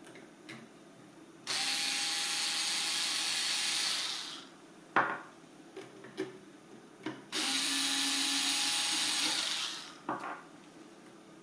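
Power screwdriver running twice, about two and a half seconds each time, backing Phillips screws out of a coffee grinder's housing, with a few short clicks and taps between the runs.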